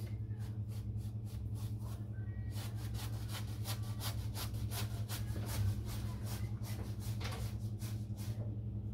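Shaving brush painting lather onto the scalp: a run of swishing brush strokes, about two to three a second, with a short pause about two seconds in.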